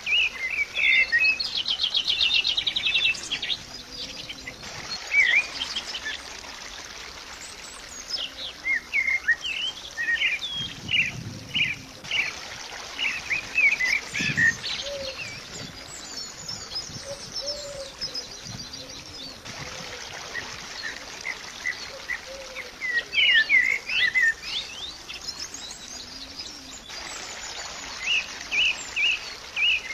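Small birds chirping: clusters of short, quick chirps and a fast trill, with quieter stretches between the clusters, over a steady faint hiss.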